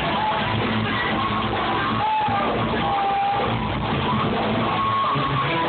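A rock band playing live, heard from the crowd: guitar, drums and keyboards in a dense, steady wall of sound with held melodic notes on top.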